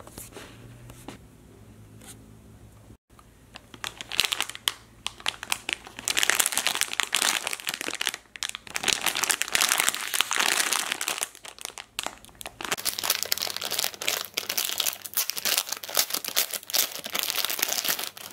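Plastic packaging crinkling and rustling as hands pull it open and off a squishy toy. It starts a few seconds in, runs dense and loud, and stops briefly twice.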